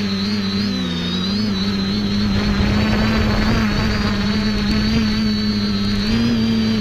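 The X550AIOP quadcopter's four electric motors and propellers whining steadily, heard from on board the aircraft, their pitch wavering slightly as the throttle shifts. A rough low rumbling noise runs underneath.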